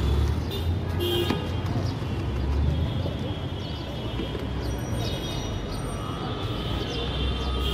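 Busy street ambience: a steady low traffic rumble with voices and some music mixed in.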